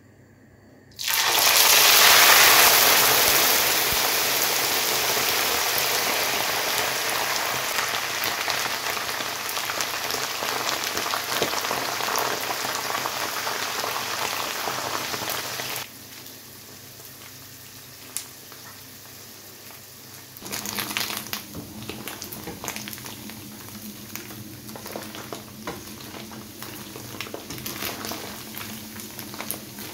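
Omena (small dried silver cyprinid fish) dropped into hot cooking oil, starting a loud sizzle about a second in. The sizzle cuts off suddenly partway through, and a quieter crackling fry goes on with small clicks from a spatula stirring the fish in the pan.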